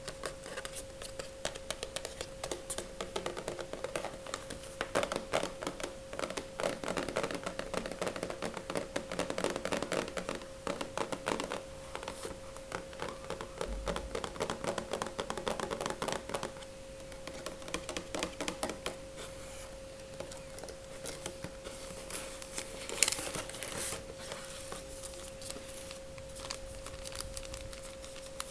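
Crinkling and tearing of a face mask's packet as it is handled and opened close to the microphone: a dense run of small crackles, busiest in the first half, with one sharper snap near the end. A steady hum runs underneath.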